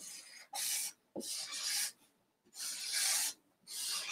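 Black marker drawing on paper: about five short scratchy strokes, one after another, with brief pauses between them as rabbit ears are sketched.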